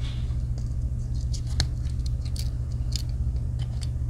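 Light clicks and scrapes of a Victorinox Huntsman Swiss Army knife being handled, as the small tools are slid in and out of their slots in the plastic handle scales, with a steady low hum beneath.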